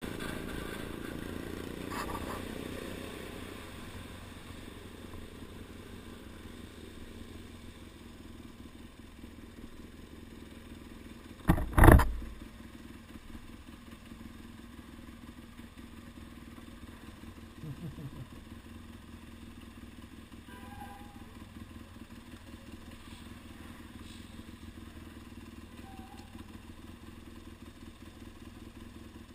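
Motorcycle engine, a BMW F800 parallel-twin, with wind noise while riding in traffic, easing off over the first few seconds, then idling steadily while stopped. A sharp double knock about twelve seconds in is the loudest sound.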